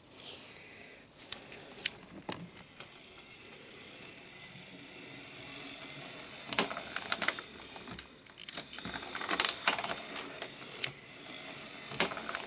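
OO gauge model tank locomotive running on track: its small electric motor whirs, with scattered sharp clicks as the wheels pass rail joints and points.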